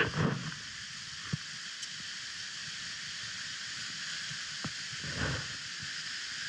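Quiet outdoor ambience: a steady high hiss, with a few faint ticks and a brief low rustle about five seconds in.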